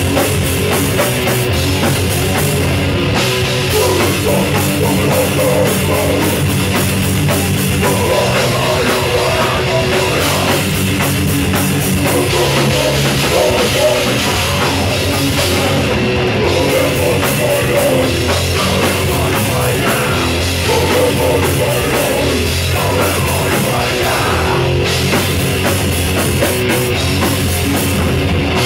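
Crust punk band playing a fast, loud song live: distorted electric guitar, bass and a pounding drum kit, with vocalists shouting into microphones.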